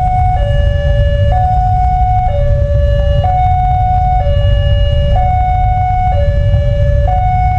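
Electronic level-crossing warning siren sounding while the crossing is closed, alternating between a higher and a lower steady tone about once a second. A steady low rumble runs underneath.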